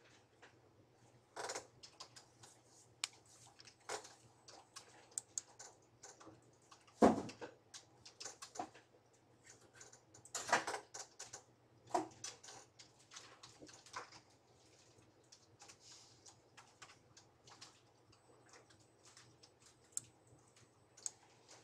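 Irregular clicks and taps of a computer keyboard and mouse, with a heavier thump about seven seconds in, over a faint steady low hum.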